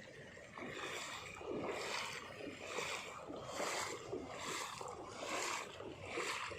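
Water sloshing and splashing in regular surges, about one a second.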